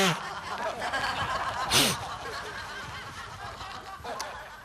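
Exaggerated comic sobbing and sniffling from one person, with one loud sob falling in pitch about two seconds in, then trailing off more quietly.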